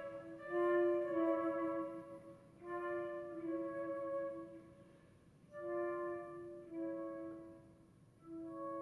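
Flutes playing soft, held notes in two-part harmony, in short swelling phrases of about two seconds separated by brief pauses.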